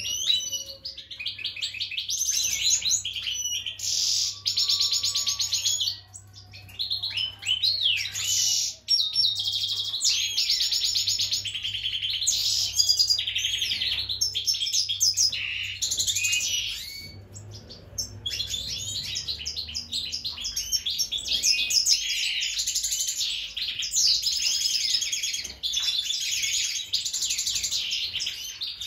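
Mutation European goldfinch singing a long, fast twittering song broken by a few short pauses: the song of a goldfinch ready to breed.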